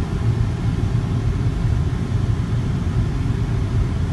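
Steady low rumble of a car driving along a road, heard from inside the cabin: tyre and engine noise at an even, moderate speed.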